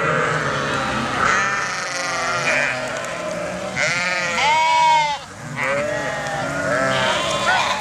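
A large flock of sheep bleating, many calls overlapping, with one loud bleat about halfway through.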